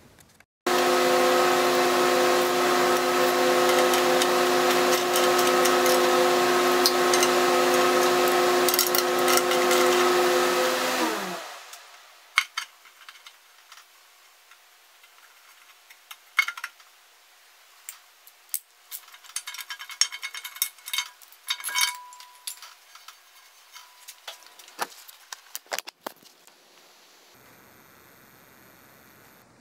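An electric power tool's motor runs at a steady pitch for about ten seconds, then winds down and stops. After it come scattered light clinks and knocks of metal tools and parts being handled.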